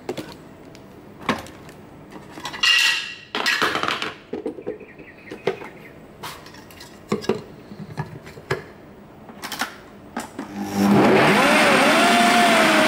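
A few knocks and clatters as ingredients go into a blender jug. Then, about eleven seconds in, a countertop blender starts suddenly and runs loud with a wavering whine, blending baby spinach.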